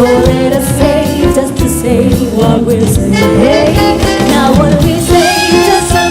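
Jazz band playing an upbeat song, a bending melody line carried over the full band.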